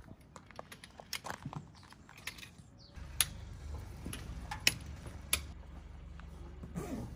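Scattered light clicks and clinks, a few sharper ones standing out, with a low steady hum coming in about three seconds in.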